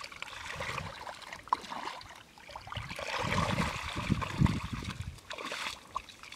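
Hands sloshing and splashing through shallow muddy water and mud while groping for fish, heavier in the middle.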